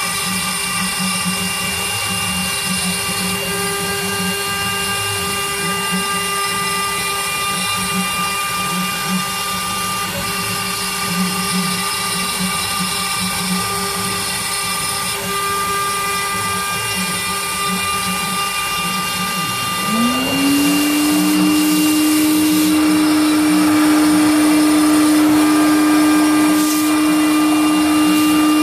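Homemade CNC router running steadily with a whine of several held tones as its spindle carves into wood. About two-thirds of the way through, a vacuum cleaner starts up: its motor note rises quickly and then holds, and it is louder than the router.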